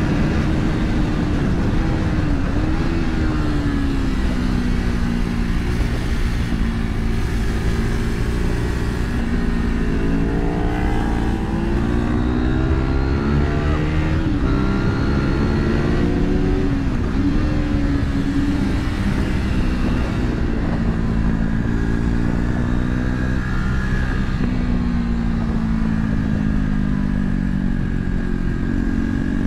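A vehicle engine running hard at track speed. Its pitch climbs under acceleration and drops back at shifts and braking, several times over.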